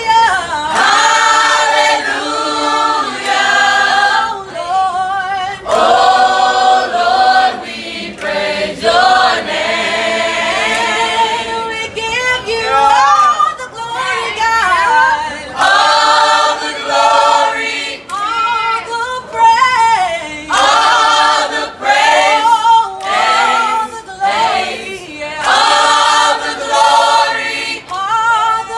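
A student choir singing a cappella, many voices in harmony with no instruments. The phrases are broken by short gaps, and there are sliding, ornamented notes about halfway through.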